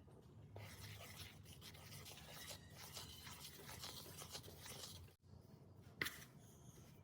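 Faint rubbing and scraping with light ticks, from hands working food on a work surface. It breaks off briefly just after five seconds, and a sharp click comes about six seconds in.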